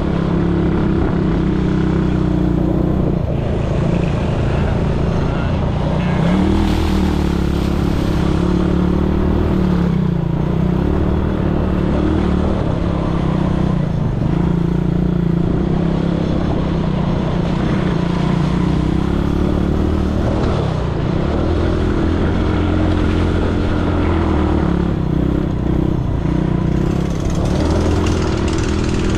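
ATV engine running steadily, its pitch drifting up and down a little throughout.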